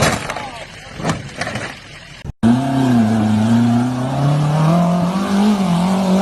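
A few sharp knocks and clatters, then, after an abrupt cut, a 4x4's engine running hard under load with its pitch slowly rising.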